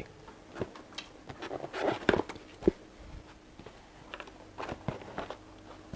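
Scattered light clicks and knocks of a Harley-Davidson Pan America's seat being handled, unlatched and lifted off, with one sharper knock a little before the middle.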